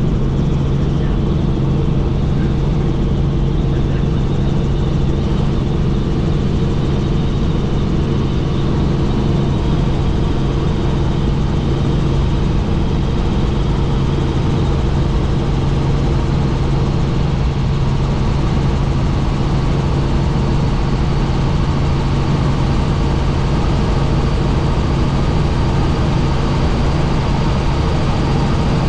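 Helicopter running steadily: a constant low drone with a strong hum and no change in pitch or level.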